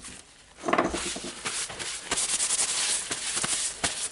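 A paper towel scrubbing and rustling as grease is wiped off a rotary hammer's gear housing and cylinder, with a knock under a second in and a few small clicks.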